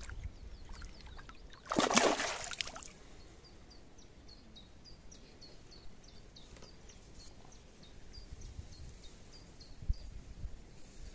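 A hooked carp splashing at the water's surface beside a landing net, one short burst about two seconds in. After it, a small bird sings a quick run of short, high notes for a few seconds.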